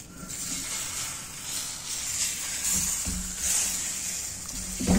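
Egg-topped paratha frying in ghee on a hot griddle over a high gas flame, sizzling.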